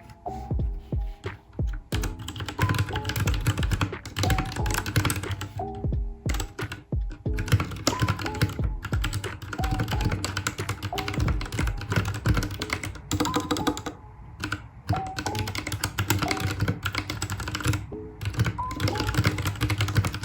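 Fast typing on a mechanical keyboard, a dense run of key clacks with a few brief pauses, over background music with a gentle melody.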